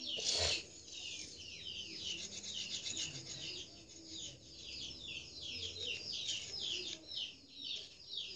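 A knife scraping along a wooden stick in quick repeated strokes, shaving off thin tinder shavings. Birds chirp in the background.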